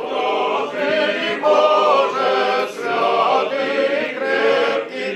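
Orthodox church choir singing a liturgical chant in sustained chords that shift every second or so.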